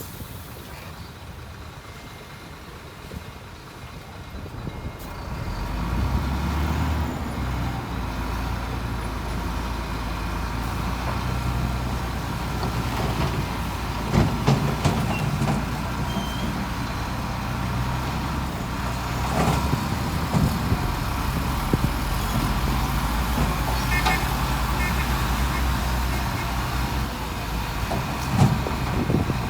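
Heavy diesel engine of earthmoving machinery running, getting louder about five seconds in, with a few short knocks scattered through.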